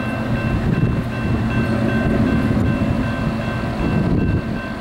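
Oncoming CSX diesel locomotive working under power, with a loud, steady engine rumble, while a bell rings at an even pace of about two strokes a second.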